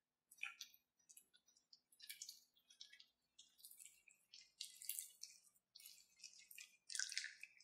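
Bare hands squishing and turning chicken pieces in a thick, wet marinade of curd, spices and gram flour in a glass bowl: faint, irregular wet squelches, one after another.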